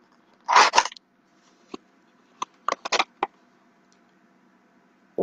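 Small cardboard perfume box being opened by hand: a short, loud scraping rustle about half a second in, then a few light clicks and taps as the bottle is worked out of the box.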